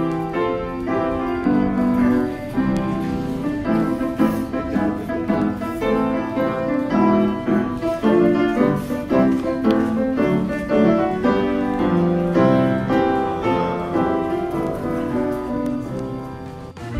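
Instrumental keyboard music playing steadily, with several notes sounding at once and the notes changing in a flowing, even rhythm.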